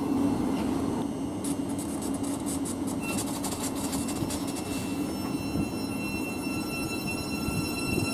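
Thameslink Class 700 Desiro City electric multiple unit moving slowly along the platform: a steady low hum with several thin steady whines above it. A run of rapid high crackling clicks sounds from about one and a half to five seconds in.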